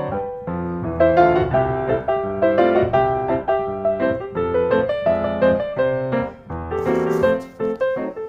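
Background piano music: a gentle melody of single notes over lower chords.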